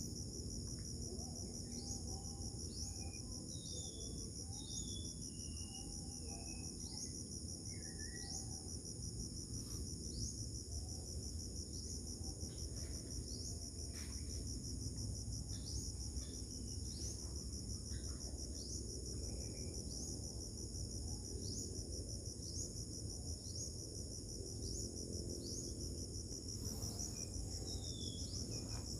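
Steady, high-pitched insect chorus, a rapid even pulsing trill, with short chirps repeating about once a second over it and a low rumble of background noise beneath.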